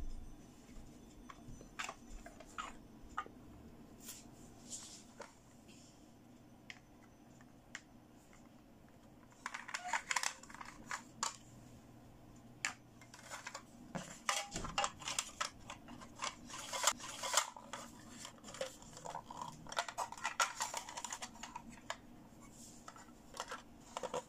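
Small plastic toy cake slices handled and set down on plastic play plates: light clicks and taps, sparse at first and busier in the second half.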